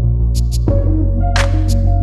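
Background music: a deep steady bass under held synth notes that change pitch, with light high percussion ticks coming in pairs.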